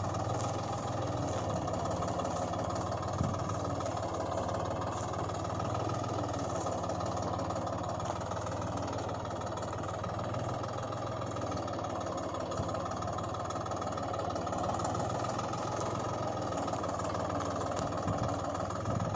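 Tractor engine idling steadily, an even drone with no revving, with one light knock about three seconds in.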